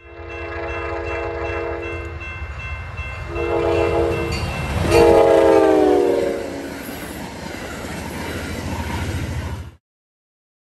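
Passenger train horn blowing a multi-note chord in three blasts as the train approaches and passes. The third and loudest blast drops in pitch as the train goes by, over the low rumble of the train on the rails. The sound cuts off suddenly near the end.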